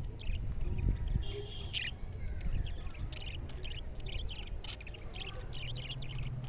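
A colony of budgerigars chattering: many short, rapid chirps, with one louder, higher call about a second in, over a low rumble.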